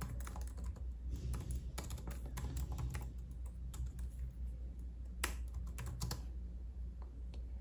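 Typing on a computer keyboard: quick, irregular key clicks that thin out to a few scattered taps about six seconds in.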